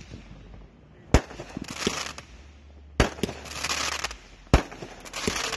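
Aerial fireworks going off: three sharp bangs about a second and a half apart, each followed by about a second of crackling hiss.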